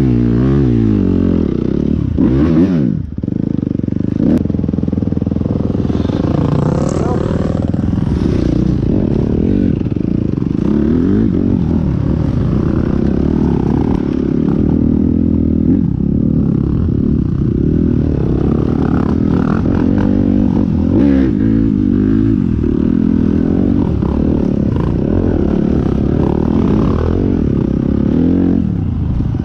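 Vehicle engine running hard while being ridden, its pitch rising and falling as the throttle opens and closes, with a brief drop about three seconds in.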